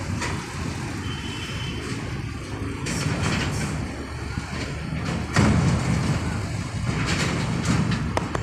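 Heavy machinery running with a steady low engine rumble, which grows louder about five and a half seconds in.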